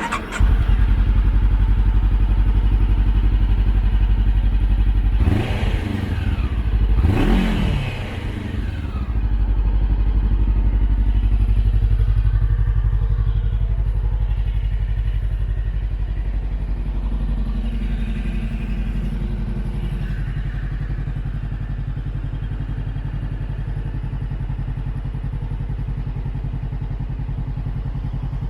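Honda CBR400R parallel-twin engine idling through a US Yoshimura slip-on silencer. It is revved twice, about five and seven seconds in, and each time falls back. It then settles into a steady idle that eases down slightly.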